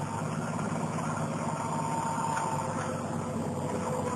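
Engine of a Toyota Land Cruiser 40-series 4x4 running steadily at low revs as it crawls through a sandy rut, with no revving.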